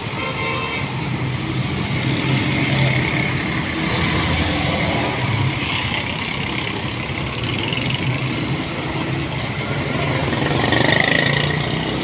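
Motor vehicle engines running, a steady mix of engine noise that swells slightly near the end.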